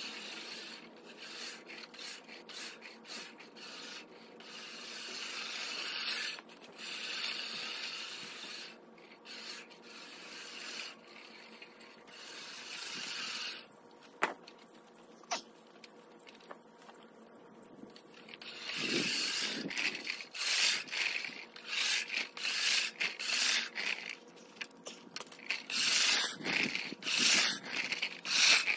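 Earthwise 7-blade push reel mower cutting grass: the spinning reel whirs and snips in passes a few seconds long as it is pushed. Two sharp clicks come about halfway through, and in the last ten seconds the strokes turn shorter, quicker and louder.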